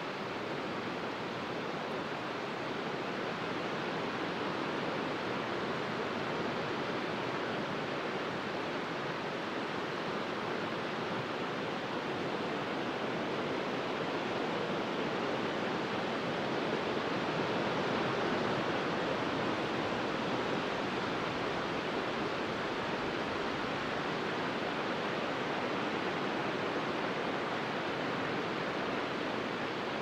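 Small sea waves breaking and washing in over a wide, flat sandy beach: a steady hiss of surf that swells slightly about halfway through.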